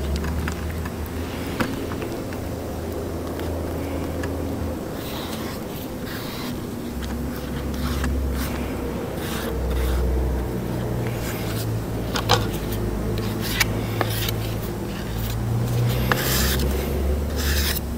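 A filler spreader scrapes and folds two-part body filler and hardener on a mixing board, in short scratchy strokes with the odd click. A steady low hum runs underneath.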